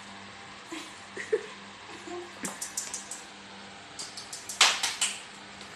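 A dog's leather shoes tapping and scuffing on a tiled floor as it walks, in two quick runs of sharp clicks, with a louder scuff near the end.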